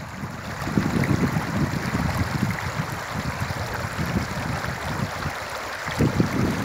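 Shallow river water flowing and babbling over a stony bed, a steady rushing hiss. Gusts of wind knock on the microphone, strongest near the end.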